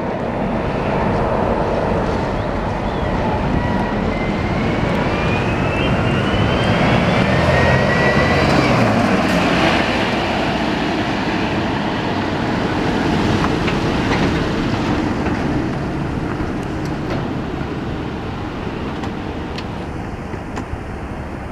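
Scania K420 double-decker coach's diesel engine running as the coach accelerates past, with a rising whine, loudest as it passes close and fading as it pulls away.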